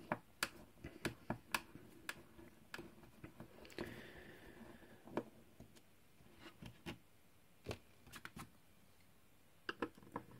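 Hand screwdriver backing screws out of a turntable's MDF or chipboard case: scattered light clicks and taps of the tool and screws, with a short scraping sound about four seconds in.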